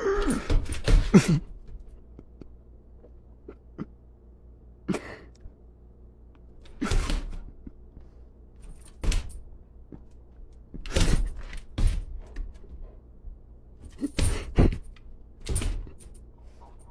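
Doberman pinscher pouncing at a laser dot on a vinyl tile floor: a series of sudden thumps and scuffs of paws and nose striking the floor. They come in a quick cluster at first, then one every second or two.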